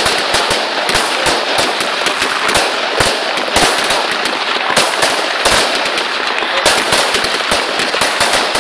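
Aerial fireworks in a dense barrage: rapid, continuous crackling from crackling stars bursting overhead, with heavier bangs mixed in.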